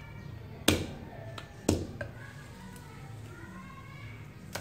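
Knife striking a wooden chopping board while cutting garlic cloves: two sharp chops about a second apart, with a few lighter knocks later.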